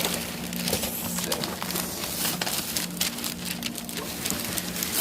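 Wrapping paper rustling and tearing as a present is unwrapped: a continuous run of irregular crackles.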